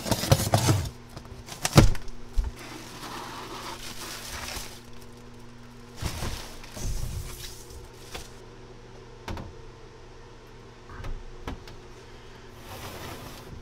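Unboxing a supercharger: packing tape torn from a cardboard box, with cardboard and plastic wrap rustling, and scattered knocks and thuds, the loudest about two seconds in. A steady low hum runs underneath.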